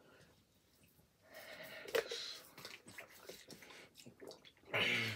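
A person breathing hard and gulping water from a plastic bottle, in distress from the burn of an extremely hot chip, with a short voiced groan near the end.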